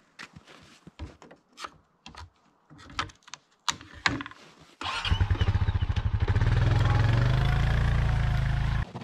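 Light clicks and knocks of handling on the ATV's rack, then a 2022 Honda Rancher's single-cylinder engine starts about five seconds in and runs steadily as the quad pulls away.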